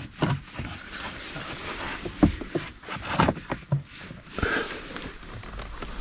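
Handling noise from a cabin air filter and its plastic housing behind the glovebox: rustling with a series of irregular light knocks and clicks.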